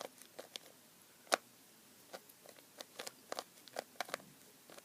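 Rubik's Cube layers being turned by hand during a solve: an irregular run of sharp plastic clicks, loudest about a second in.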